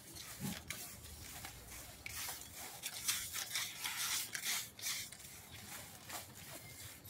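Irregular scratchy strokes of Sika Cool Coat White being brushed onto a primed surface as the first coat.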